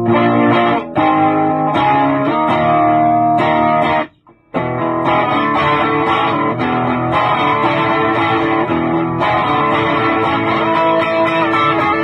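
Electric guitar played through a 1960s Kustom Kraft tube amplifier, several notes ringing together and changing as the chords go. The playing stops for a moment about four seconds in, then carries on.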